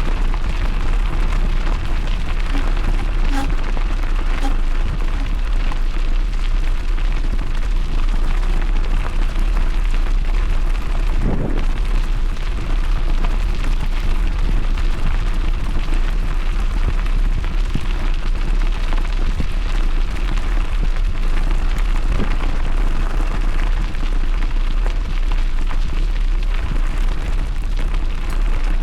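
Continuous wind rumble and buffeting on the microphone of a moving dog-bike, with rolling trail noise underneath.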